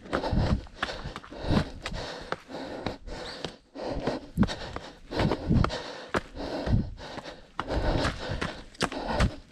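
A trail runner's footsteps and breathing, picked up close by a chest-mounted GoPro, in an uneven rhythm of roughly one to two strokes a second.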